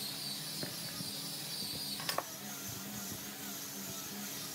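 Steady background hiss, with two sharp knocks close together about two seconds in.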